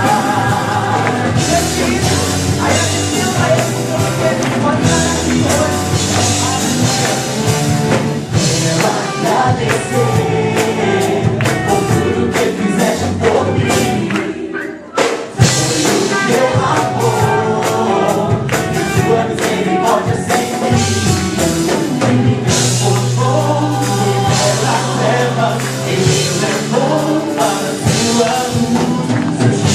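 Gospel band playing with several voices singing together. The music drops out briefly about halfway through, then comes back in with a sudden loud accent.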